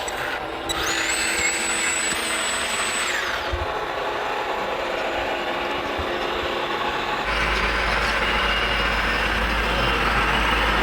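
Radio-controlled model construction machines working. A high electric whine rises and holds for a couple of seconds. About seven seconds in, a steady, louder low running noise starts and carries on.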